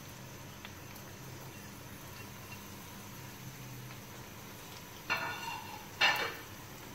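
Sliced onions sizzling faintly and steadily in oil in a wok, with two brief louder sounds about five and six seconds in.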